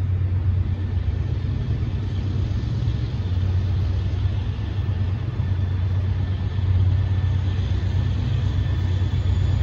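Steady low diesel rumble of an approaching locomotive working under throttle, growing a little louder about two-thirds of the way through.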